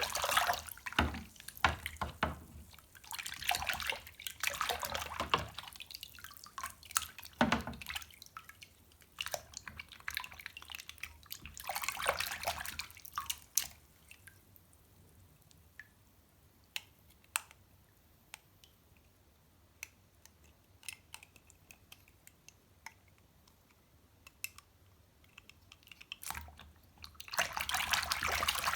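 Water splashing and running in short spells as small toy cars are washed, with scattered drips and small clicks in between and a quieter stretch in the middle.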